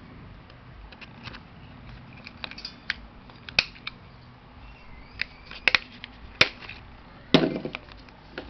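A small plastic mini stapler snapping shut on a strip of paper, several sharp clicks a second or so apart, the last one heavier with a short crunch.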